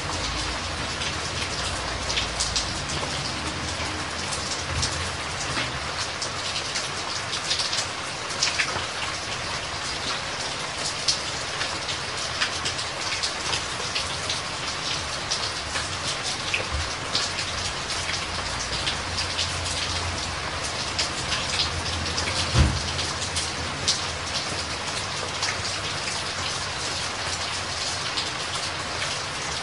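Shallow stream running over rocks: a steady rush of water with many small splashes, and one brief low thump about three-quarters of the way through.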